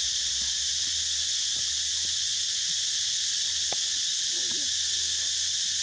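Steady, high-pitched drone of an insect chorus, with a few faint clicks.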